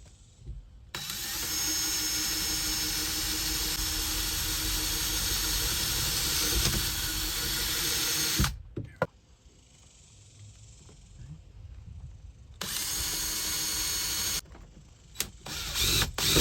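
Handheld power tool motor running steadily at full speed for about seven seconds, stopping, then running again briefly, followed by a few knocks and clatter near the end.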